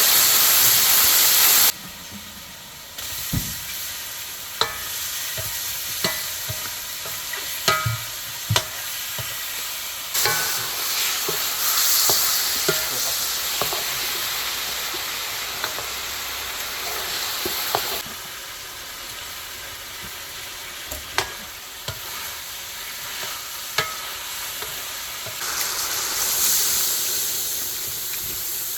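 Food sizzling as it is stirred in a hot pan, with a utensil knocking and scraping against the pan now and then. A louder hiss for the first two seconds cuts off suddenly.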